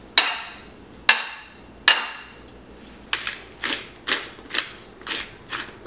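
Two metal spoons clinking against a ceramic casserole dish while tossing raw fish and onions in lime juice: three ringing clinks about a second apart, then a quicker run of lighter taps in the second half.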